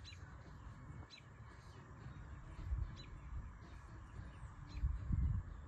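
A bird calling outdoors in short, sharp chirps, one about every second or so, over steady open-air hiss. Low rumbles come and go underneath, the loudest about five seconds in.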